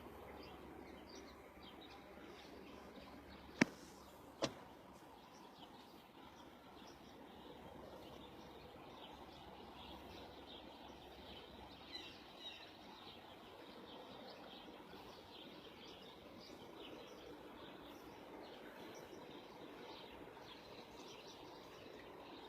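Many wild birds chirping together, faint, with many short high calls over a steady low background noise. Two sharp clicks stand out a few seconds in, about a second apart.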